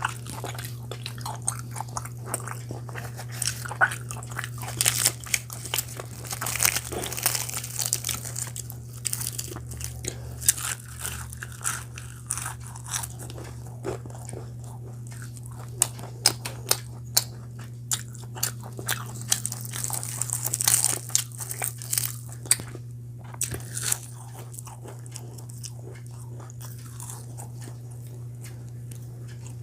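A person eating close to the microphone, most likely chicken and puri: irregular bites and chewing with many sharp crunchy and wet clicks, over a steady low hum.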